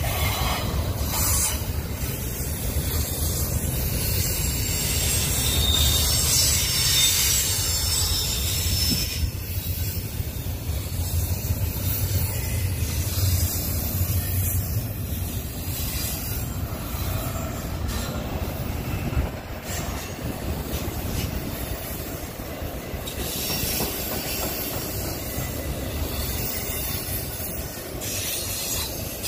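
Double-stack intermodal freight cars rolling past: a steady low rumble of steel wheels on rail, with a high wheel squeal that swells and fades several times.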